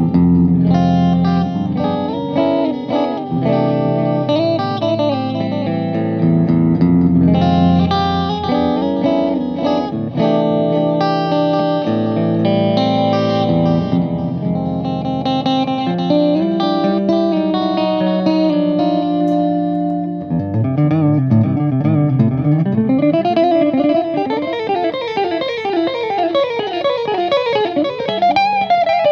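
Background electric guitar music. About twenty seconds in, it changes to fast, rippling runs of notes.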